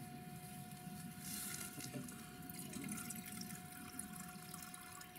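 Water poured from a metal measuring cup into a metal mess tin packed with vegetables and sliced pork, splashing and trickling over the food, strongest about a second in.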